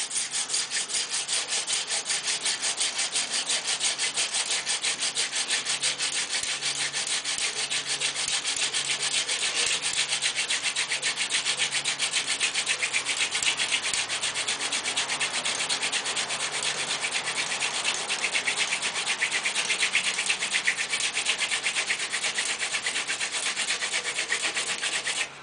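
Hand-drill friction fire: a Paulownia spindle spun back and forth between the palms, grinding in the notch of a Paulownia hearth board with a rapid, even rhythm of rasping strokes. The wood is smoking as the friction builds toward a coal.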